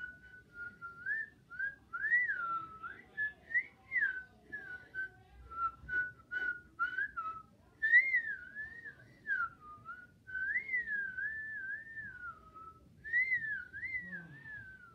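A person whistling a wandering tune: one clear pitch gliding up and down in short phrases with brief gaps.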